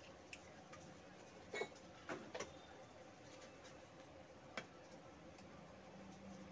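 Near silence with a handful of faint, brief clicks and ticks from handling a CRT picture-tube base socket and its wires.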